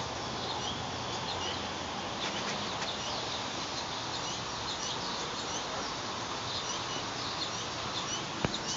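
Small songbirds chirping and twittering in many short, quick notes over a steady background hiss, with one sharp click near the end.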